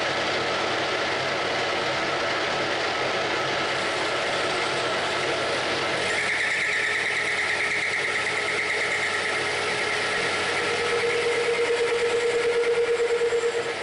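Metal lathe running steadily while a tool cuts into a small metal bar for spacers. About six seconds in a high-pitched squeal starts from the cut, and near the end a lower pulsing tone takes over and then stops abruptly.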